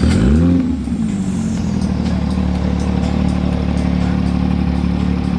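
Porsche 911 GT3 RS's naturally aspirated flat-six engine given one quick throttle blip, the revs rising sharply and dropping back within about a second, then running steadily at low revs as the car rolls away.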